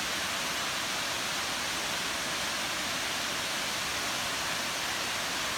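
Waterfall: falling water making a steady, even hissing rush that does not change.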